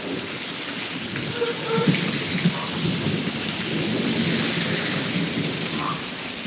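Thunder rumbling over steady rain. The rumble swells about a second and a half in, is loudest in the middle and dies down near the end, while the rain hisses on throughout.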